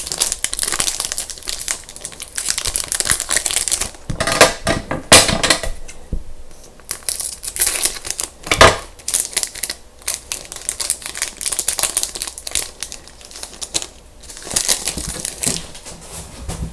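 Trading-card pack wrapper being torn open and crumpled by hand: a run of crinkling and crackling, with a few sharper crackles about four and a half, five and nearly nine seconds in.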